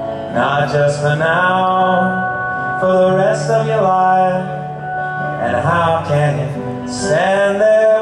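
Live band playing a slow song: a long-held melody line slides up into a new note every couple of seconds over steady bass notes, with no words sung.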